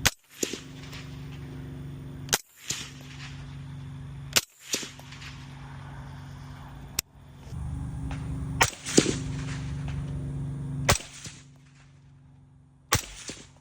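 HK MR762 .308 semi-automatic rifle fired through a SilencerCo Omega 300 suppressor: a series of single suppressed shots, about two seconds apart, each a sharp crack with a short ringing tail.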